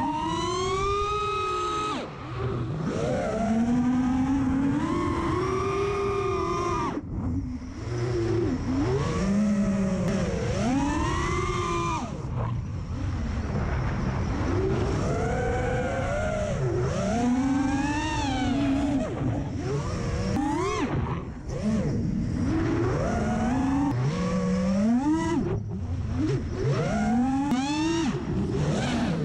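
Brushless motors and propellers of a 5-inch FPV racing quadcopter, heard from its onboard camera: a high whine that keeps rising and falling with the throttle, dropping out briefly several times as the throttle is chopped.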